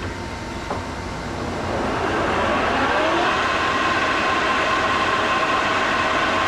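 American Pacemaker metal lathe's spindle and gear train spinning up with a four-jaw chuck: a whine that rises about two seconds in, then levels off and runs steadily at the set 1,000 RPM.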